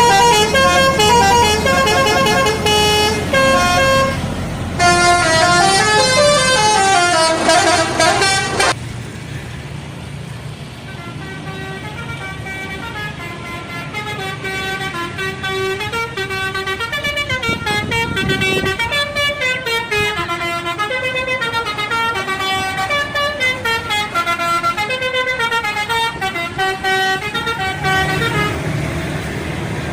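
Indonesian bus 'telolet' musical air horns playing fast stepping melodies of several tones at once. The first loud tune cuts off about nine seconds in, and a second horn tune follows, growing louder and stopping near the end.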